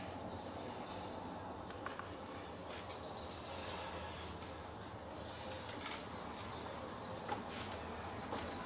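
Steady outdoor background noise, a faint even hiss, with a few light taps.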